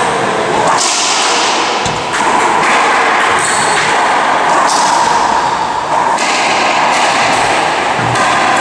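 Racquetball rally in an enclosed court: the hollow rubber ball cracks off the racquet strings and smacks the walls about once every second or so, each hit ringing on in the court's echo.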